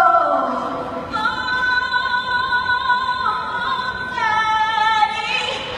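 Women's voices singing a slow song, holding long high notes in harmony, two long phrases.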